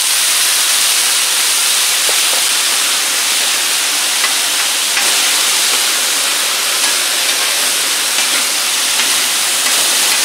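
Wet diced potatoes frying in oil on a Blackstone flat-top griddle heated on high, giving a loud, steady sizzle. The water still on the freshly drained potatoes hitting the hot oil makes the hiss of steam.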